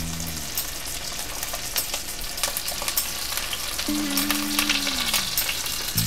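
Chicken breasts searing in hot grapeseed oil and butter in a cast iron skillet, just laid in: a steady sizzle with many small crackling pops.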